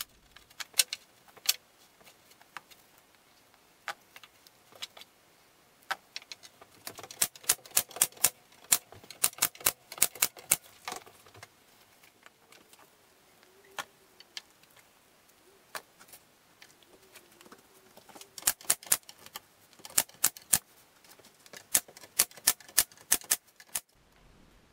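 Metal bar clamps clicking and rattling in quick runs of sharp clicks as they are set and tightened on a wood glue-up.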